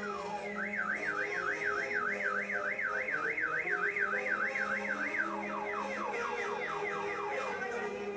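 Car alarm siren cycling through its tones: a run of falling sweeps, then a fast up-and-down warble for several seconds, then falling sweeps again.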